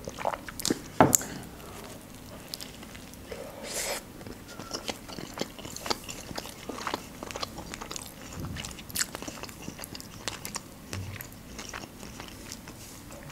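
A person chewing a mouthful of shawarma with the mouth closed: irregular soft, wet mouth clicks and smacks, the loudest about a second in.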